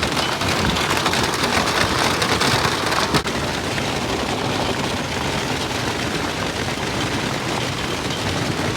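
Large hailstones pelting down in a dense, continuous clatter of impacts, with one sharper hit about three seconds in.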